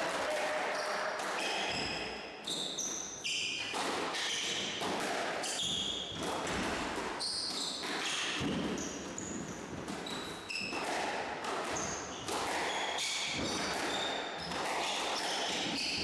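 Squash rally: the ball is struck by rackets and smacks off the walls and floor in quick, irregular hits, with short, high-pitched squeaks of court shoes on the wooden floor between them.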